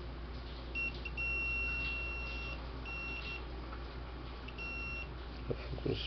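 Digital multimeter's continuity buzzer beeping as its probes touch the leads of a new thermal fuse for a fan: a high steady tone in about four broken beeps, the longest about a second and a half. The beep shows the fuse conducts, so the fuse is good.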